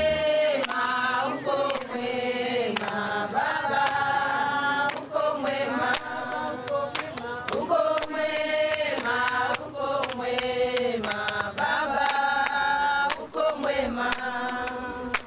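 Voices singing together in a chant-like song, held notes gliding from one pitch to the next, with sharp percussive hits.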